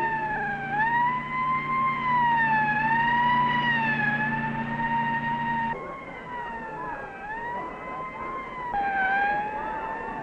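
Fire truck siren wailing, its pitch rising and falling slowly about every two seconds. A steady low hum runs under it for the first half, and the sound jumps abruptly about six and nine seconds in.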